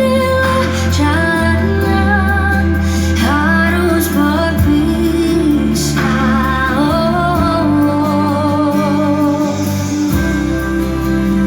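A song with a female voice singing over a bass-heavy accompaniment, played back through Yamaha NS-777 speakers driven by a Yamaha A-S500 amplifier.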